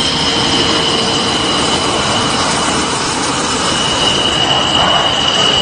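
JF-17 Thunder fighter's RD-93 turbofan engine running at power as the jet rolls along the runway: a loud, steady rush of noise with a steady high whine.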